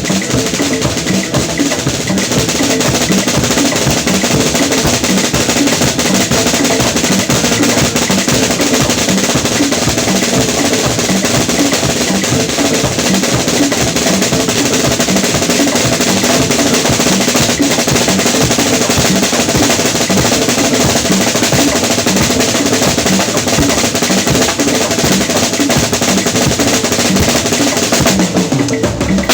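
Drum kit played fast and continuously, a dense stream of snare and drum strokes.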